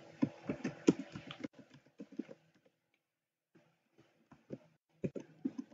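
Typing on a computer keyboard: runs of quick key clicks, a pause of about a second in the middle, then more keystrokes.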